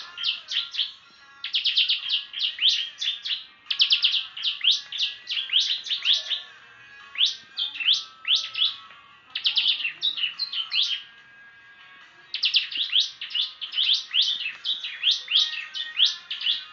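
A prinia (prenjak) singing in rapid runs of sharp, high chirps, several a second, in bursts with short breaks and one longer pause about two-thirds of the way through.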